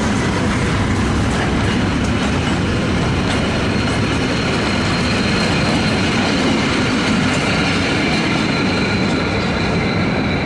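Container freight train's wagons rolling past at speed, a steady rumble with wheels clattering over the rails. A thin high tone runs above the rumble and grows stronger in the second half.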